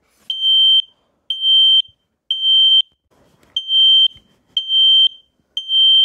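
Kidde KN-COSM-BA combination smoke and carbon monoxide alarm sounding in smoke mode: two sets of three loud, high-pitched beeps, each about half a second long, with a short pause between the sets. This is the temporal-three pattern that signals fire.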